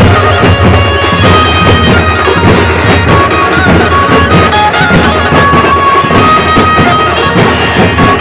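A Gondi dhumal band playing loud folk dance music: a lead melody with long held notes over steady, dense drumming.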